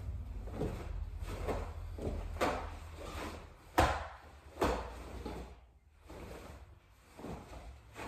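Long wooden bo staff swishing through the air in a string of quick swings and spins, mixed with footsteps and stamps on a padded mat. A sharp knock about four seconds in is the loudest stroke.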